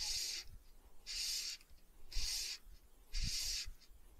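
Fly line being stripped in by hand on a retrieve: a short hiss of line through the rod guides and fingers with each pull, about one a second. A few light handling bumps come between the pulls.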